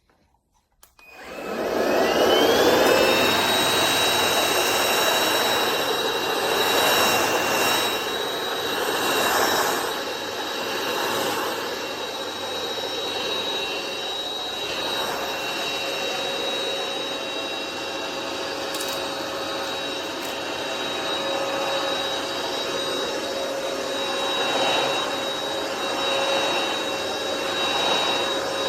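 Cordless stick vacuum switched on about a second in: its motor spins up with a rising whine, then runs steadily with a high-pitched whine over a rushing airflow noise.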